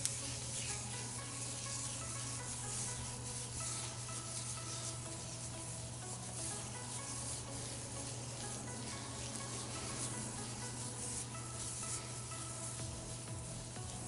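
A comb and fingers working through wet, product-coated curly hair, making a faint continuous rubbing and crackling over a steady low hum.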